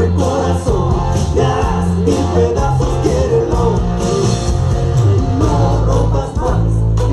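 Loud recorded music with singing and a strong bass line, played over a mobile DJ sound system (a Mexican "sonido").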